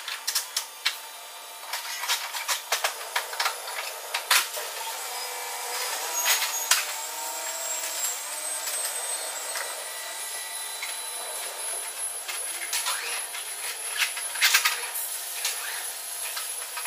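Industrial noise in a steel warehouse: irregular metal clanks and knocks over a steady machinery noise, the clanking busiest in the first few seconds and again about fourteen seconds in.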